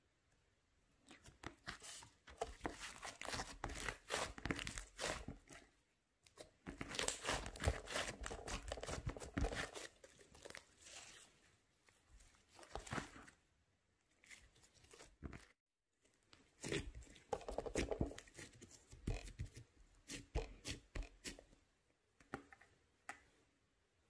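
White slime being kneaded, squeezed and pulled apart by hand, giving dense sticky crackling and tearing sounds as air pockets pop. It comes in several spells a few seconds long, with short quiet gaps between them.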